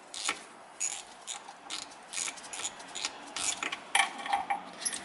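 Small socket ratchet clicking in short bursts, about twice a second, as it is swung back and forth to undo nuts on a metal pump housing. A brief metallic clink rings out about four seconds in.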